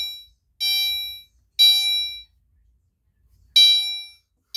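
Gentex fire alarm horn sounding the temporal-three evacuation pattern: a buzzy horn tone repeated three times about a second apart, then a longer pause before the next set begins.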